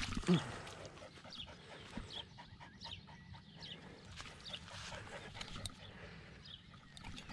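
A dog whimpering in short, high, falling whines every second or so. Just after the start, a landed common carp flaps on the wet grass.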